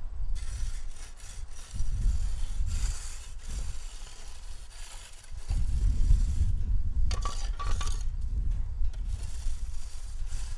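Hand tools scraping and raking loose asphalt, with clinks of metal on stone a little past halfway, over a steady low rumble.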